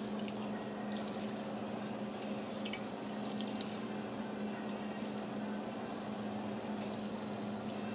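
Hot salted water poured from a bowl over steamed vermicelli in a perforated steel couscoussier steamer basket, moistening the noodles between steamings, over a steady low hum.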